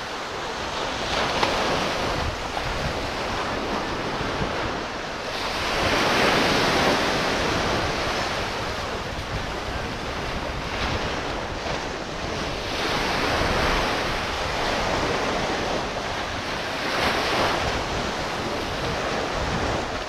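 Surf washing onto a sandy beach, the sound of the waves swelling and fading every few seconds. Wind buffets the microphone.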